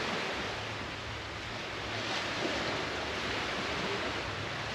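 Steady wash of sea waves breaking on a shore, with wind rumbling on the microphone.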